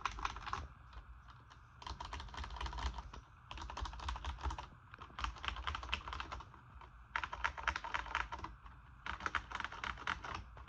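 Typing on a 1994 Compaq MX11800 mechanical keyboard with vintage Cherry MX Brown tactile switches. Fast runs of key clicks come in bursts of a second or two, with short pauses between them.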